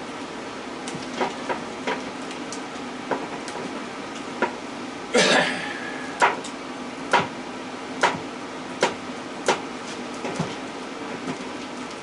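Hand work on scrap electric-motor copper: a series of sharp clicks and knocks, nearly one a second in the second half, and one short scrape about five seconds in, over a steady low hum.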